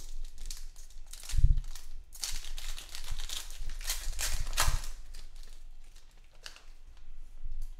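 Foil trading-card pack wrappers crinkling and tearing open, with cards rustling in hand. A dull thump comes about a second and a half in, the loudest sound, and another near the five-second mark.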